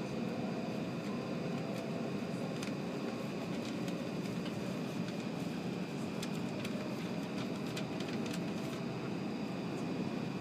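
Running noise inside the cabin of an E7 series Shinkansen at speed: a steady low rumble with a faint high whine, and scattered light ticks in the second half.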